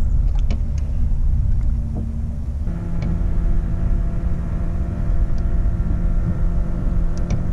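A boat motor hums steadily over a low rumble; about two and a half seconds in, the hum shifts to a slightly lower, fuller tone.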